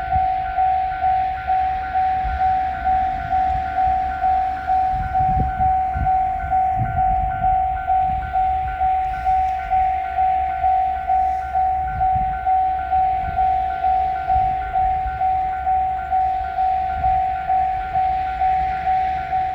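Japanese railroad crossing alarm bell ringing its repeated electronic clang, about two strikes a second, signalling that a train is approaching the crossing. A low rumble runs underneath.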